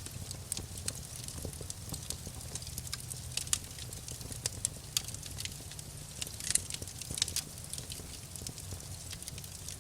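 Campfire burning wood, crackling with irregular sharp pops over a steady low rumble; a few louder pops stand out in the middle.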